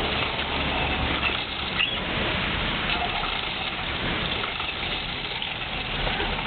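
Steady hiss of heavy rain, with a few faint clicks.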